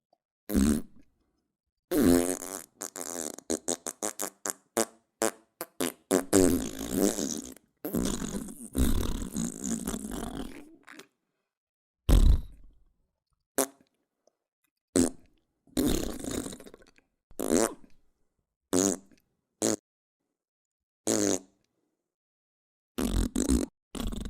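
A series of fart sound effects: separate blasts of varying length with silent gaps between them, including a quick run of short sputters and several longer, drawn-out ones.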